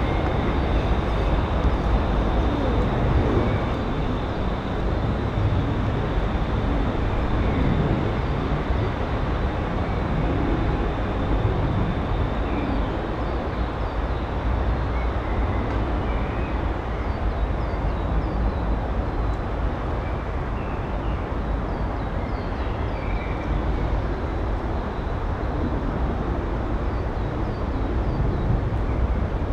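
Steady low rumble of distant traffic, the constant background noise of the site. Faint high chirps of small birds come through from about the middle onwards.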